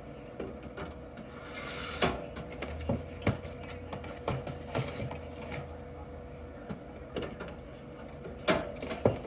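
Soda being stacked by hand into a drink column of a vending machine: irregular clunks and knocks of the drinks and the column's metal parts, about a dozen, the loudest about two seconds in and near the end, over a steady faint hum.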